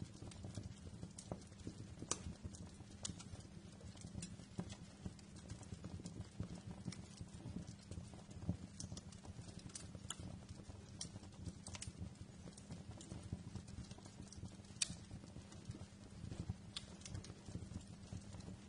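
Fireplace fire crackling, with irregular sharp pops and snaps over a low, steady rumble of the flames.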